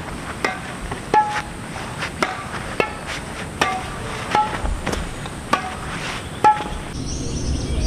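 A series of sharp strikes at irregular intervals, a little under one a second, each with a brief ringing tone that varies slightly in pitch from strike to strike.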